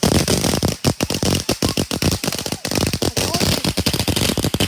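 Consumer firework going off in a rapid, unbroken string of loud pops and crackles, several a second.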